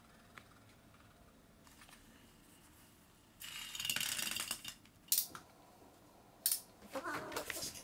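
A small plastic spinning top whirring and rattling on a wooden floor for just over a second, followed by two sharp knocks as it is batted about. Near the end a cat gives a wavering meow.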